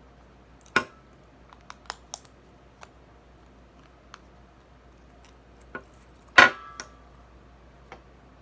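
Scattered clicks and knocks of a plastic bath toy being handled and pried apart, with two louder knocks, one about a second in and one past the middle.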